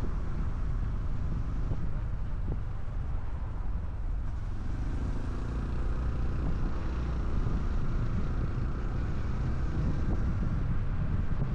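Small single-cylinder Honda Cub 125 motorcycle engine running on the move, with steady wind rushing over the microphone.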